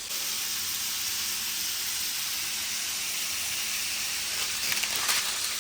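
Pieces of fish frying in hot oil in a pan, sizzling with a steady high hiss and a few sharper crackles near the end.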